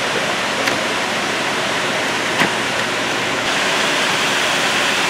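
Scotchman GAA-600 CNC upcut non-ferrous circular cold saw running with its motor on and blade spinning free before a cut: a steady whirring hiss, with a single sharp click about two and a half seconds in.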